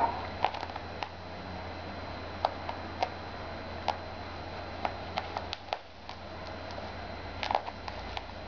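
A cat's paws and claws scuffing and ticking on carpet as it plays, an irregular scatter of short sharp clicks.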